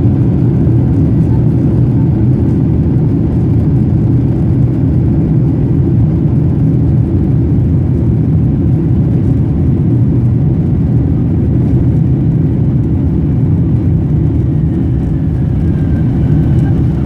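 Steady low rumble of a Boeing 747-400's engines and airflow heard inside the passenger cabin.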